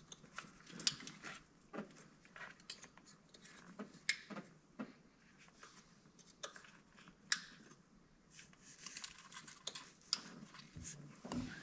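Faint, scattered clicks and taps of hands handling parts and fittings in a car's engine bay, with a few sharper clicks among them.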